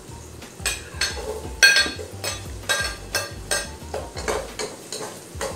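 A metal spoon clinking and scraping against a ceramic plate and the rim of a pot as chopped onion is pushed off the plate into the pot, then stirring. Sharp clinks come two or three a second, some with a brief ring.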